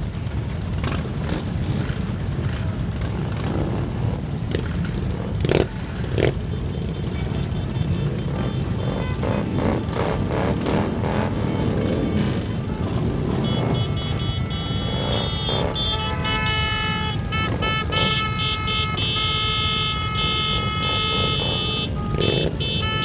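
Many motorcycles and trikes idling together in a low, steady rumble. Two sharp clicks come about five and six seconds in, and from a little past halfway a set of held high tones sounds over the engines.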